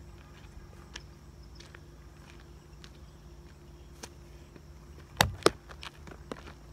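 A baseball striking the asphalt close to the microphone: two sharp knocks about a quarter second apart, a little after halfway through, followed by a few lighter taps.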